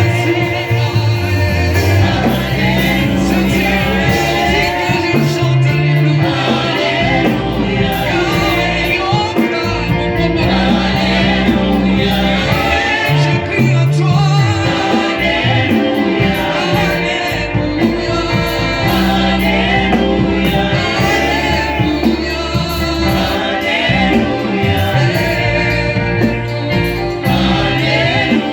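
Gospel choir singing with a band, over a steady bass line that moves to a new note every couple of seconds.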